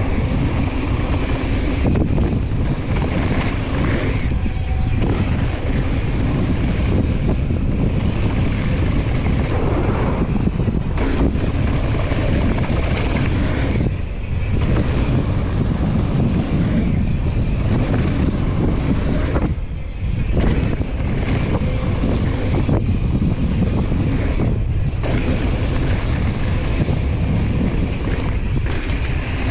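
Wind buffeting the camera microphone and the rumble of a mountain bike's tyres and frame over a dry dirt trail during a fast descent, dipping briefly twice.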